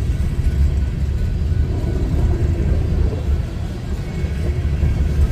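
Empty coal gondola cars of a freight train rolling past close by: a steady low rumble of steel wheels on the rails.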